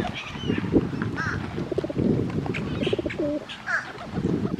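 Birds calling: a few short, arched calls, with one lower, drawn-out call about three seconds in, over a steady low background noise.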